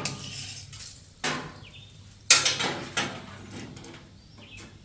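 Sheet-metal duct pipe clanking as it is handled and set in place, three metallic knocks that ring briefly, the loudest about two seconds in.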